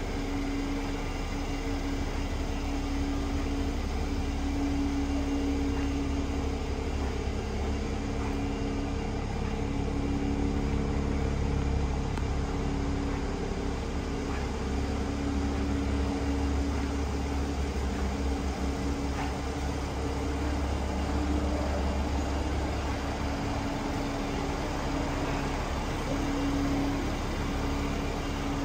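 Steady low mechanical hum with a droning tone that wavers slightly in strength.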